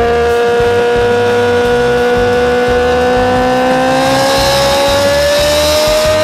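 Kawasaki H2 motorcycle engine pulling hard at high revs, its pitch rising slowly as the bike accelerates in gear. A rushing hiss of wind builds over the last couple of seconds.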